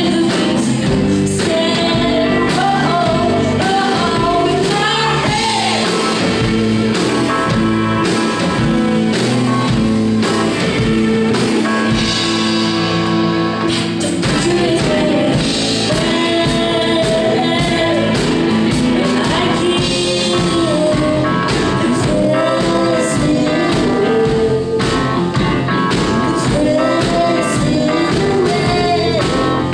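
Live band playing a song with sung vocals over electric guitars, keyboard and drums, steady and loud throughout.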